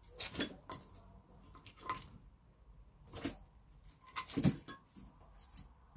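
About half a dozen knocks, scuffs and rustles as a Eurasian eagle-owl shifts about on a carpeted windowsill with a plush toy in its beak, the loudest cluster a little past four seconds in.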